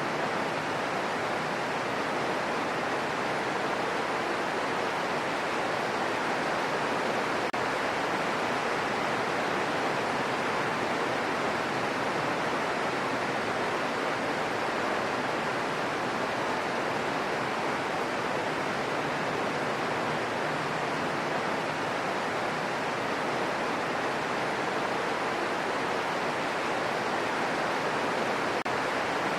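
Steady rain falling, an even hiss with no single drops standing out and no change in level.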